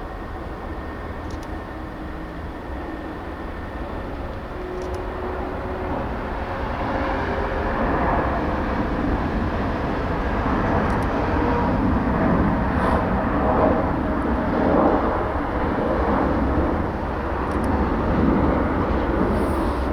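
Jet airliner taking off: its engines at takeoff power, the sound growing louder over the first several seconds and then holding loud, with wind rumbling on the microphone.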